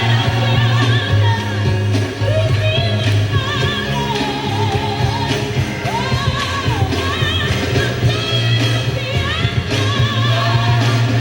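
Music with singing: a voice with wide vibrato over a band with a heavy, steady bass.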